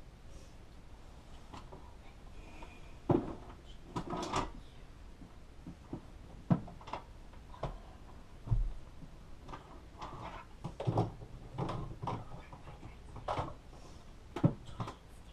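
Scattered crackling rustles and light knocks in dry bark-chip bedding as a ball python shifts its coils and works at a mouse.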